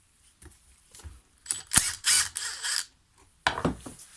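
A ratchet clicking while undoing the blade bolts of a Stihl HS 45 hedge trimmer: a sharp click about two seconds in, then about a second of rapid clicking, and another short burst near the end.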